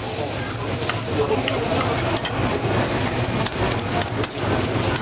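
Oil sizzling steadily on a flat griddle as hotteok (Korean filled pancakes) fry. Sharp clicks of metal tongs come from about two seconds in.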